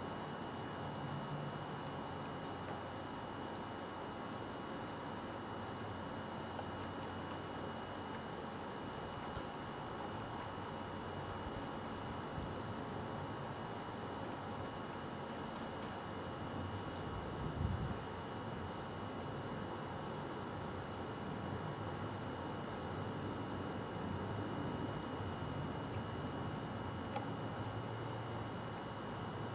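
Insects chirping: short high chirps repeating in small groups, over a steady hiss and a thin steady high tone. A brief low thump about 18 seconds in.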